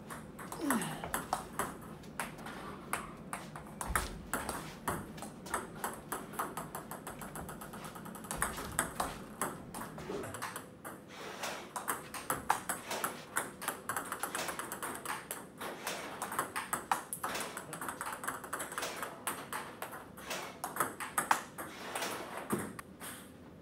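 Table tennis balls clicking off rubber paddles and bouncing on the table, many quick ticks in an irregular run through rallies and serves.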